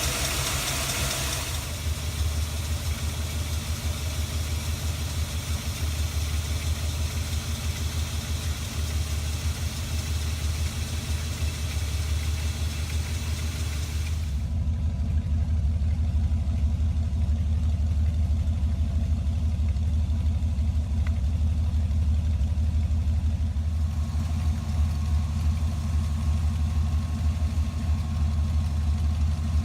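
Chevrolet 350 small-block V8 idling steadily. About halfway through it grows a little louder as the higher hiss falls away.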